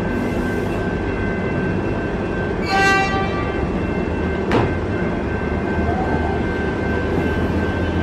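Electric suburban train standing at the platform with a steady electrical whine and low rumble. A brief chord of high tones about three seconds in comes as its doors close, followed by a sharp click, and the low rumble grows as it readies to pull away.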